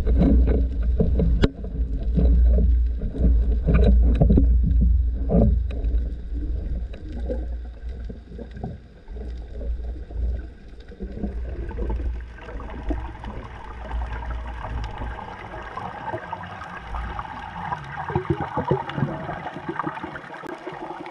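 Underwater sound through a camera housing on a speargun: a heavy low rumble of water rushing past, with scattered clicks and knocks. After the first few seconds the rumble eases, and a lighter hissing wash builds through the second half.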